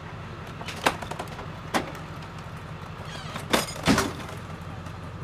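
Metal frame of a wheeled ambulance stretcher clanking as it is loaded into the ambulance: four sharp knocks, the two loudest close together about three and a half seconds in, over a steady low hum.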